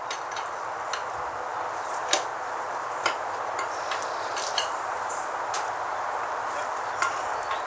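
Occasional sharp metallic clicks and clinks of hand tools on metal hardware, about one every second or so, over a steady background hiss.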